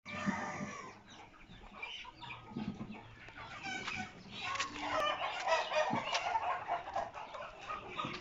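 A flock of chickens clucking and calling, many overlapping voices, getting louder about halfway through.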